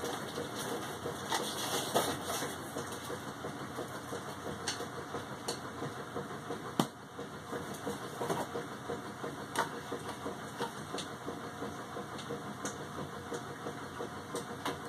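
Rustling and handling noise from a cardboard shipping box being rummaged through, with scattered light knocks and clicks.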